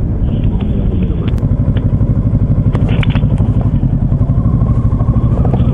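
Kawasaki Ninja 650's parallel-twin engine running at low speed, a steady low pulsing exhaust note, with a few light clicks over it.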